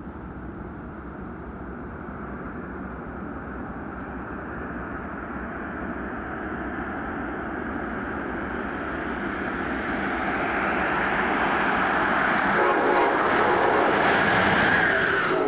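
Amtrak Northeast Regional train approaching, its rail rumble growing steadily louder, with a horn sounding in the last few seconds.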